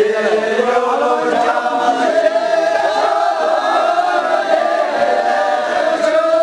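A group of voices singing a Tamang syabru dance song together in a chanting style, with long drawn-out held notes.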